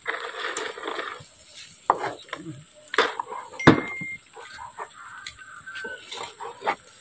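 Knife chopping barbecued meat on a cutting board: a few sharp chops, the loudest about three and a half seconds in, with voices and farm animals in the background.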